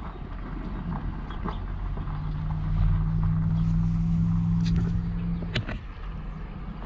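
Knocks and rustles of a camera being handled close to the microphone, over a low steady hum that begins about two seconds in and cuts off suddenly with a knock.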